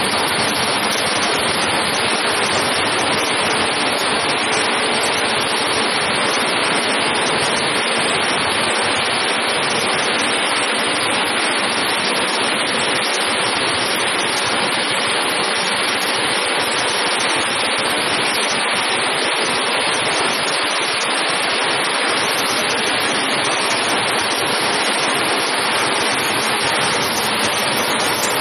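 Metal crusher running with crushed scrap metal moving through it, a loud, steady, dense noise.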